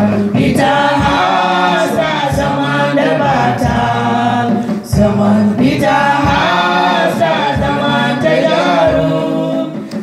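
A small vocal group of women and a man singing a gospel song together into microphones, with a steady low beat under the voices.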